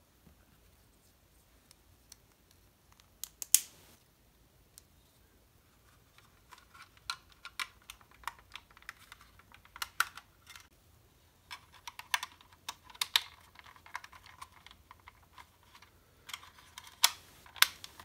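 Hard plastic model-kit parts clicking and tapping as they are handled and pressed onto the model. A few sharp clicks come about three and a half seconds in, then frequent light clicking, louder near the end.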